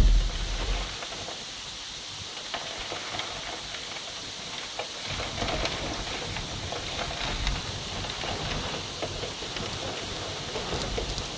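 Heavy tropical-storm rain: a steady hiss with scattered ticks of drops, and wind rumbling on the phone's microphone in stretches from about halfway and again near the end. A loud low thump sounds right at the start.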